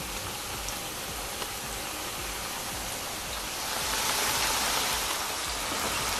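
Corn tortilla triangles frying in hot oil in a skillet: a steady crackling sizzle with faint pops, growing louder about four seconds in.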